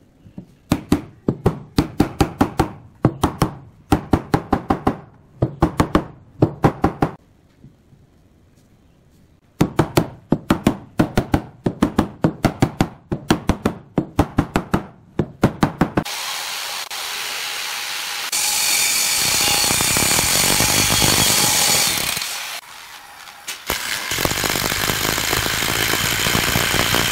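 Pine frame joints being knocked home with a mallet: quick runs of sharp knocks in several groups with short pauses. About halfway through, a cordless drill takes over, driving screws into the wood, running steadily with a brief drop near the end.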